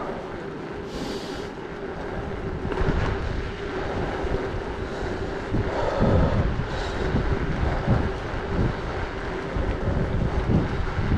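Wind buffeting the microphone of a mountain bike rolling along a paved road, a gusty rumble that grows stronger about halfway through.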